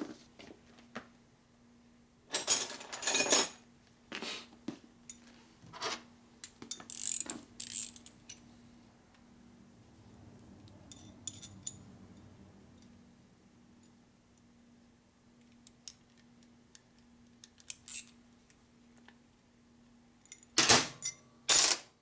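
Scattered metallic clinks and rattles of a steel stud, nut and small hand tools being handled and set down on a metal-topped workbench, with the loudest short clusters about two to three seconds in and near the end.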